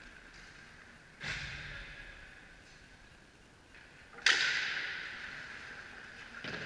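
Two sharp cracks of ice hockey play, a puck or stick striking, echo through an indoor ice rink. A lighter one comes about a second in and a much louder one about four seconds in, each trailing off in a long echo over a steady rink hum.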